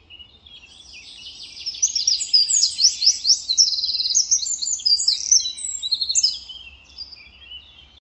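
Eurasian wren singing one long song of rapid high trills and notes. The song swells over the first two seconds and trails off about six seconds in.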